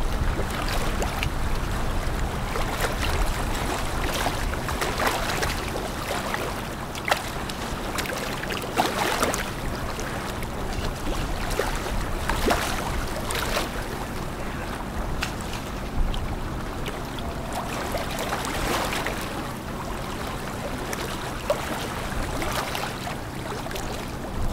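Bow wave of a container ship rushing and splashing as the hull pushes through river water, with sharper splashes now and then. A low steady hum sits underneath.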